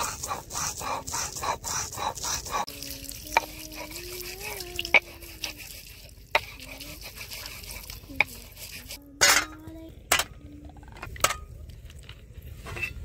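Hands washing whole hilsa fish in water: quick rhythmic rubbing and sloshing, about three to four strokes a second, for the first couple of seconds, then scattered clicks and three louder splashes a little past the middle. A faint wavering tone runs in the background.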